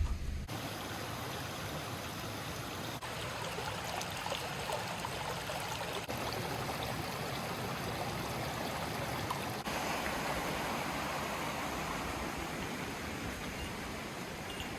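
Steady rushing of flowing water, like a stream, shifting slightly in level a few times.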